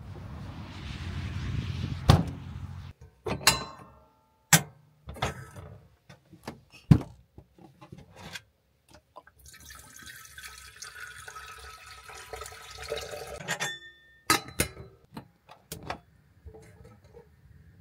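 Water pouring into a container for about four seconds, with sharp clicks and knocks of things being handled before and after.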